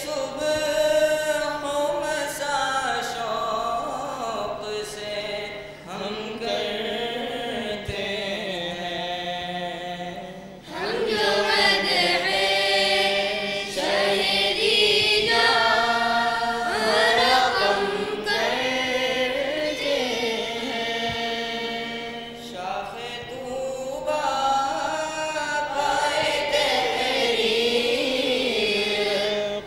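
A student group singing a Dawoodi Bohra madeh, a devotional praise poem, together in one voice without instruments, in long wavering, gliding sung lines. The singing dips briefly and comes back louder and fuller about eleven seconds in.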